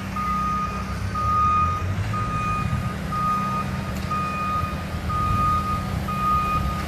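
A vehicle's reversing alarm beeping steadily, about one beep a second, over a low engine rumble.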